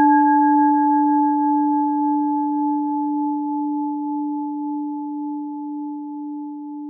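A single struck bell-like chime ringing and slowly fading away. It carries a strong low tone with fainter higher overtones, and the upper tone wavers slightly.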